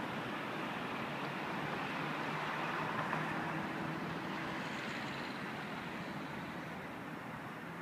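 Distant Metrolink tram running slowly, a faint hum over a steady hiss of outdoor traffic noise that swells slightly about three seconds in and eases off toward the end.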